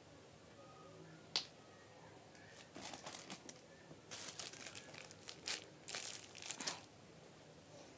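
Crinkling and rustling of something being handled, in several short clusters, with a single sharp click about a second and a half in.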